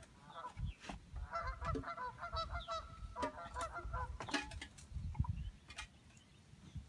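A run of short, goose-like honking calls, with several sharp knocks among them.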